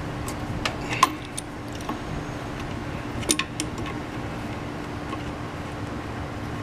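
Adjustable wrench clicking against a brass refrigerant service valve on an air-conditioner condensing unit as it is turned, a few sharp metallic clicks, the loudest about a second in and another cluster about three seconds in, over a steady low hum.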